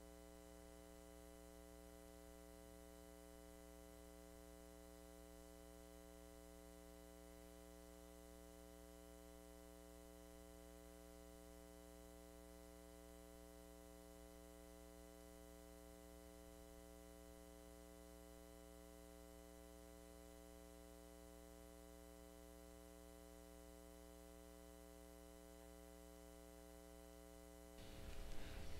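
Near silence: a faint steady hum made of several fixed tones, with no voices coming through. Near the end the hum gives way to faint, uneven sound as the audio comes back.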